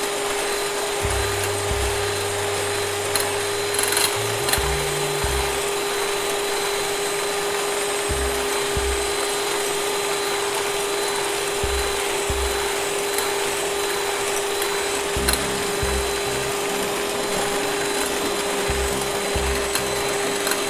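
Electric hand mixer running steadily, its twin beaters whipping instant coffee and warm water into a thick foam in a glass bowl: an even motor whine with the churning of the beaters through the paste.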